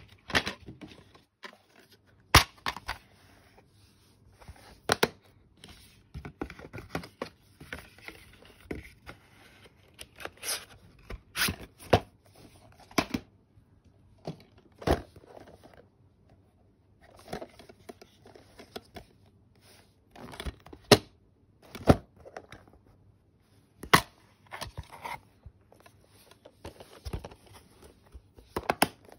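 Plastic DVD cases being handled and opened: irregular sharp clicks and snaps, with rustling and scraping in between.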